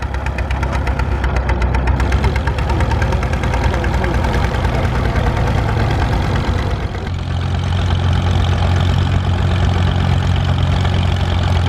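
Vintage tractor engine running in a field as it works a plough, with a steady low chug of even firing pulses. About seven seconds in the engine sound changes to a deeper, steadier hum.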